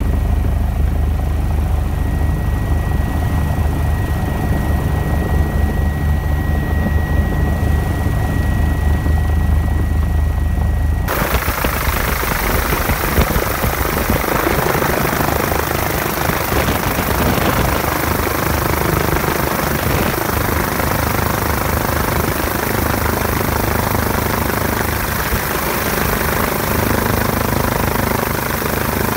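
Rescue helicopter heard from inside the cabin: a deep rotor and engine drone with a steady high whine. About eleven seconds in the sound changes abruptly to a loud, even rushing noise of rotor wash and wind that carries on steadily.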